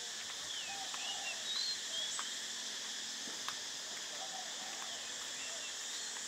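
Outdoor tropical ambience: a steady high drone of insects with short bird chirps scattered through it, and a few faint clicks.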